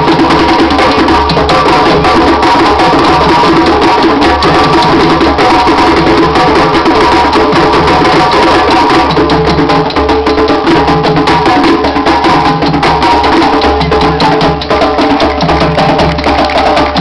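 Live capoeira roda music: hand drums beaten in a steady repeating rhythm, with sharp wooden clicking percussion over a dense, loud mix.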